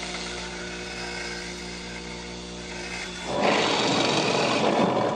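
Bench grinder running with a steady motor hum while a large drill bit, spun in a cordless drill, has its rim ground down against the wheel to shrink the hole it cuts. About three and a half seconds in this gives way to a louder, rushing drill press boring into pine with the resized bit, which stops near the end.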